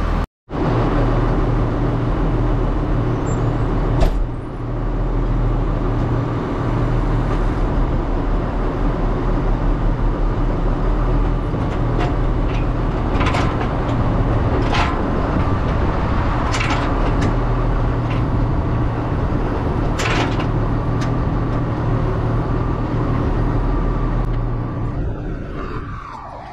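Massey Ferguson 8470 tractor's diesel engine running steadily, driving a Meyer silage bagger through its 1000 PTO shaft, with several sharp knocks and clanks from the machinery. Near the end the sound falls in pitch and winds down.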